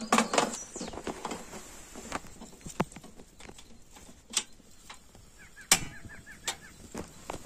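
Irregular sharp knocks and clicks, a quick cluster at the start and then single knocks every second or so, with a short run of faint quick chirps just before the loudest knock near the end.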